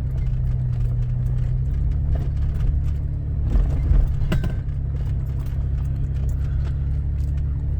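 Toyota FJ Cruiser's V6 engine droning steadily inside the cabin while driving in four-wheel drive on sand; the engine note shifts about two seconds in, and a few knocks and rattles come around the middle.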